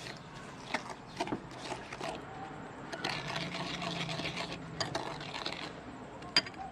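Metal spoon stirring chili sauce in a ceramic bowl, scraping and clinking against the bowl with scattered sharp clicks, the loudest near the end. A steady low hum joins for a couple of seconds midway.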